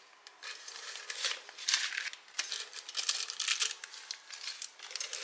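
Paper dollar bills rustling and crinkling as a hand pulls rolled and folded banknotes out of a ceramic jar, in quick irregular rustles.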